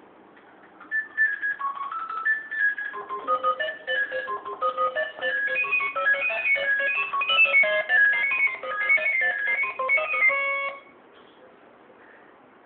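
A mobile phone's synthesized ringtone-style melody playing through a small speaker, a tinny tune of quick stepped notes. It starts about a second in, fills out with more notes after a couple of seconds, and cuts off abruptly near the end.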